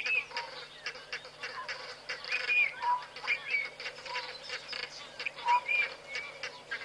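Birds calling around a waterhole: many short, overlapping calls, some arched and falling in pitch, repeating every second or so.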